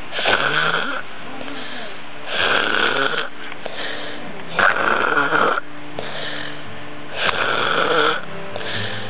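A sleeping man snoring: four rough snores, each lasting under a second, about two seconds apart.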